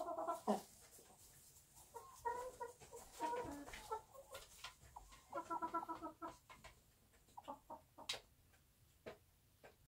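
Broody silkie hen on the nest clucking in short runs of low notes, several bursts a second or two apart, with a sharp click about eight seconds in.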